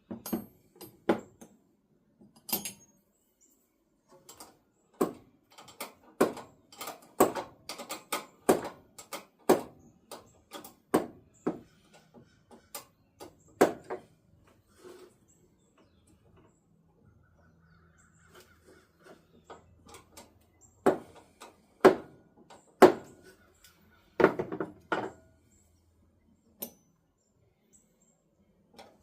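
Hand tools and small metal parts clicking and knocking at an irregular pace as new nuts are fitted and tightened on studs, with the sharpest knocks a little past twenty seconds in.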